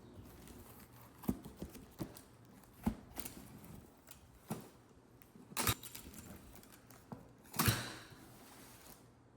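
A series of sharp clicks and knocks, about five loud ones a second or two apart, with quieter ticks and rattles between: small objects being handled.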